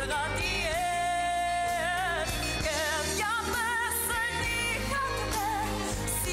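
A woman sings a pop-style song with vibrato over an instrumental backing track with a steady bass, holding one long note about a second in.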